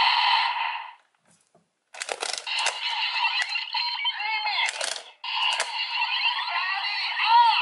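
Bandai DX Two SiDriver toy belt playing electronic sound effects and music through its small speaker. The sound cuts off about a second in and is silent for a moment. Sharp plastic clicks follow as the belt's parts are worked, along with more toy audio, and after about five seconds the speaker sound runs on steadily.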